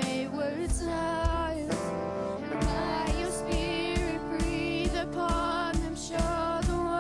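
A worship song with a singer over instruments. A steady low beat comes in about two and a half seconds in.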